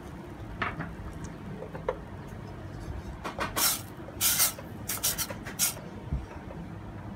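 Wooden spoon stirring liquid in a stainless steel pot. From about three seconds in, it scrapes the pot in several quick strokes over a steady low hum.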